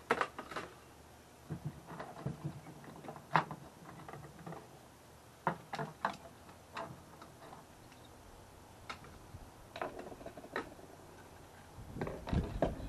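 Fishing tackle being handled and set down on a boat's console: scattered clicks, taps and light knocks of small hard plastic and metal pieces, with one sharper click about three and a half seconds in. Near the end, a denser run of rustling and low knocking as the gear is moved about.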